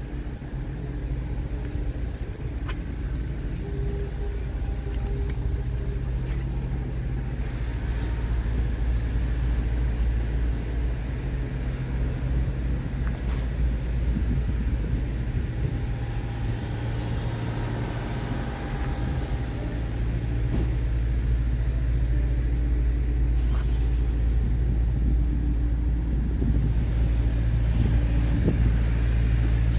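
Scania R410's 13-litre inline-six diesel engine idling steadily, growing somewhat louder over the span.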